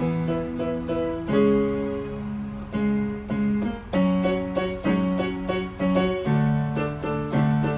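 Electronic keyboard being played: a melody over held chords, the notes changing in a steady rhythm about every half-second.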